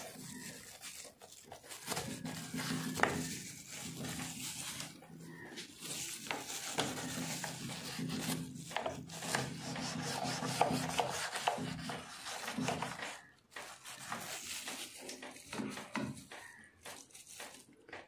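Stiff plastic brush scrubbing a refrigerator door's rubber gasket: irregular scratchy back-and-forth strokes, with a low steady hum underneath for much of it.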